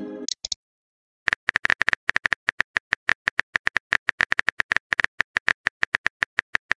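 Rapid, even clicks of a texting app's keyboard typing sound effect, about eight taps a second, starting about a second in after the tail of a short chime.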